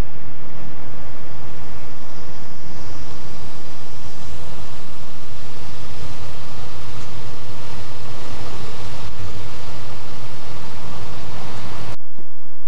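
Pickup truck's engine running with a steady low hum as the truck pulls up to the curb and idles close by; the sound drops away suddenly near the end.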